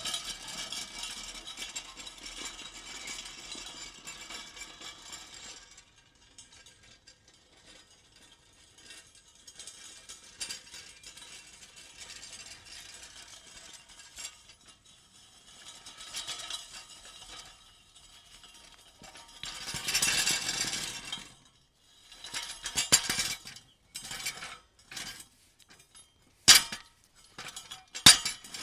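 Metal pieces and tools being shuffled and handled, clinking and rattling against each other. A dense clatter at the start thins to scattered clinks, swells again around two-thirds of the way through, and breaks into sharp separate clanks near the end.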